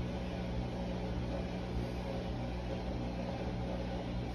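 Steady low hum under an even hiss, like a running fan, unchanging throughout.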